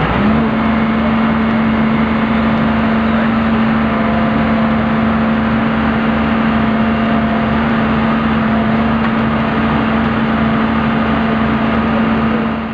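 Diesel engine of a tracked excavator running at a steady speed: a loud, even drone at one held pitch over a low, regular throb.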